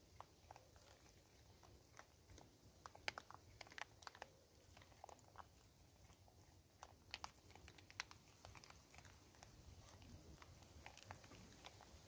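Vervet monkeys crunching and chewing dried corn kernels: faint, irregular crunches and clicks, loudest in clusters a few seconds in and again a little past the middle.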